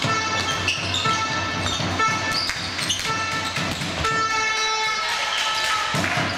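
Several horns blowing held toots at different pitches in a sports hall, overlapping one another, with the knocks of a handball bouncing on the court.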